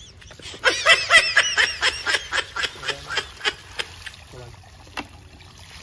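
A person laughing in a run of short high-pitched bursts that slow down and fade out over about three seconds, followed by a single click.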